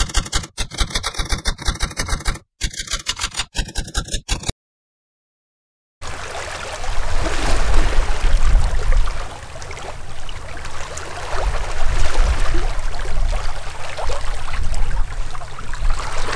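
A typewriter-style clicking sound effect, a rapid even run of key clicks with a short break, stopping about four and a half seconds in. After a second and a half of silence, water rushing in a boat's wake takes over, with a low rumble of wind on the microphone.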